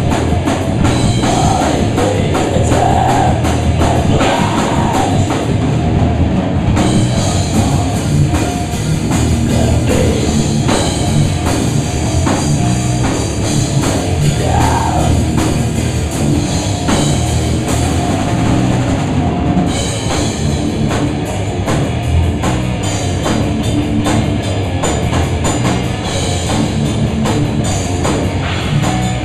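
A rock band playing live and loud: electric guitar through an amplifier cabinet and a full drum kit, going on without a break.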